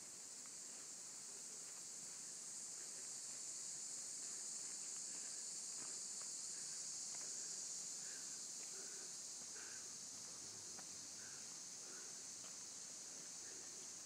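Steady, high-pitched chorus of insects in the summer woods, holding unchanged throughout, with faint footsteps on the trail underneath.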